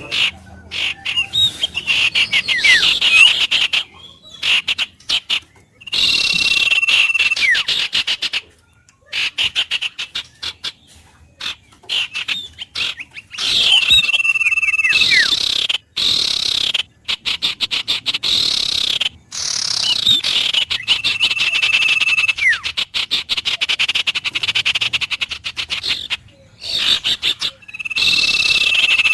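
Frogs calling in dense rapid pulsing trills, mixed with bird whistles, some held on one note and some falling. The calls come in repeated stretches with short pauses between them.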